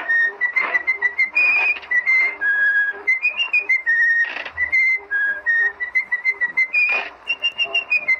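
A person whistling a lively tune in short, hopping notes, with a few short noisy bursts between phrases.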